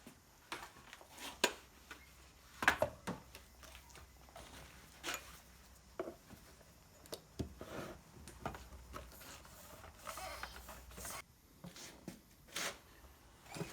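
Scattered light clicks and knocks of hand tools tightening the bolts that hold the two halves of a small trolley wheel's split hub together, a few sharper knocks among them.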